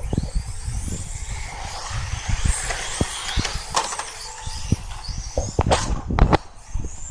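Radio-controlled touring car running, with a high whine that rises and falls as it speeds up and slows, over a low rumble. Several sharp knocks come near the end.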